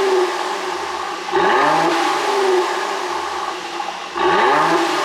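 Mercedes-AMG GLC 43's twin-turbo V6 free-revved twice, about a second in and again near the end, each rev climbing sharply and dropping back over about a second, through an exhaust remapped for pops.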